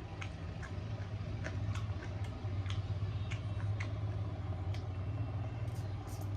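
Close-up eating sounds: chewing with small wet mouth clicks and smacks scattered a few times a second, over a steady low hum.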